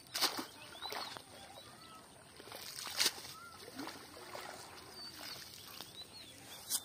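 Wet cast net being hauled out of a pond, with several sharp splashes and slaps of water as it comes up, the loudest about a second apart near the start and again in the middle. Birds chirp throughout.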